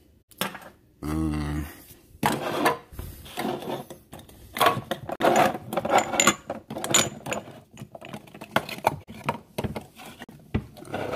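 Spice jars and bottles clinking and knocking together as they are rummaged through and shifted about in a cabinet, a busy run of irregular clatter.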